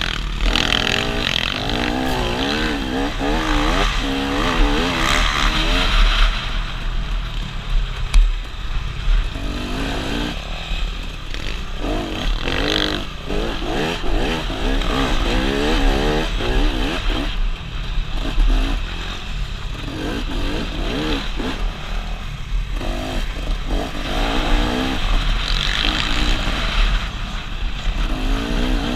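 Dirt bike engine heard from the rider's helmet camera, its pitch repeatedly rising and falling as it revs up and drops back through the gears.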